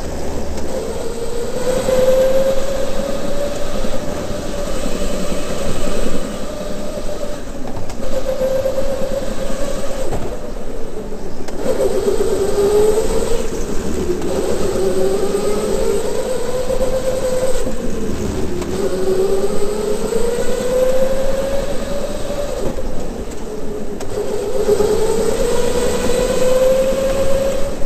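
Electric go-kart motor whining, its pitch dipping and climbing again several times as the kart slows for corners and speeds up out of them, over a rush of tyre and chassis noise.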